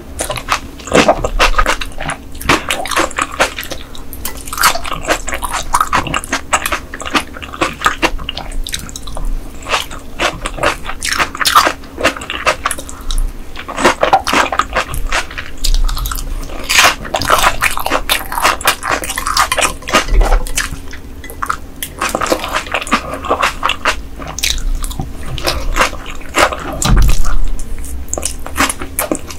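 Close-miked eating sounds of raw ice goby sashimi and green vegetables: continuous wet chewing, slurping and lip smacks, a dense run of short clicks and squelches that swells with each new mouthful.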